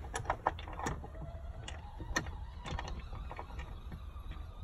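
Light clicks and knocks of a grab handle, its spacer and bolt being fitted against a Jeep Wrangler's windshield-frame bar: a quick cluster in the first second and a sharper knock about two seconds in.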